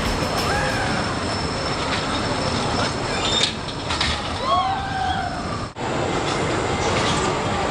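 Amusement-park din: a steady rumble of roller-coaster rides and crowd, with a few short high rising-and-falling squeals or yells about half a second in and again around four and a half seconds. The sound drops out for a moment near six seconds, then carries on.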